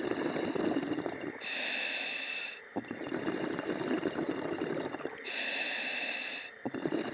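A diver breathing inside a surface-supplied hardhat diving helmet, heard over the dive radio. There are two inhalations, each a hissing rush of air, about one and a half and five seconds in, and each is followed by a longer, crackling, bubbling exhale.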